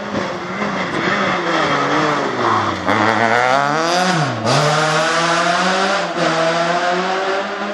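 Rally car engine coming up fast and passing close by at full speed. Its note drops as it slows, then climbs again as it accelerates. It dips sharply once more at a gear change, with the loudest part in the middle.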